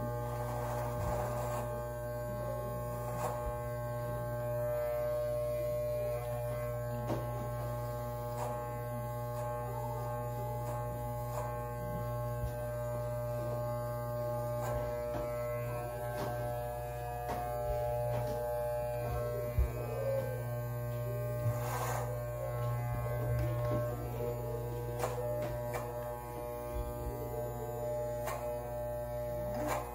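Electric beard trimmer running with a steady buzzing hum, over background music.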